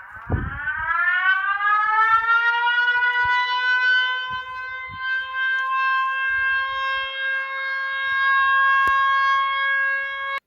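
Outdoor warning siren winding up from a low pitch over about two seconds, then holding one steady wail before cutting off abruptly. A loud low thump comes right at the start.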